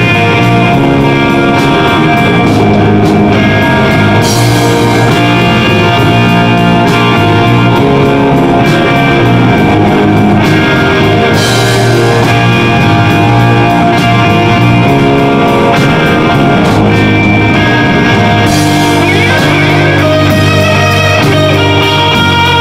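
Live extreme progressive metal band playing an instrumental passage: two electric guitars, electric bass and drum kit, with a cymbal crash roughly every seven seconds.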